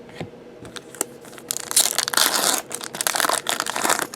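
A trading-card pack's wrapper being torn open and crinkled, in two stretches of crackling starting about a second and a half in.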